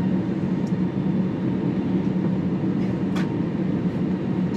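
Steady cabin drone inside an Airbus A321 on the ground before takeoff, a low hum under a noisy rush. There is a brief click about three seconds in.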